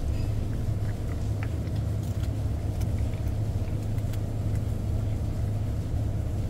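Steady low drone of a ship's engine machinery, with a few faint clicks of a dog chewing and licking meat from a hand.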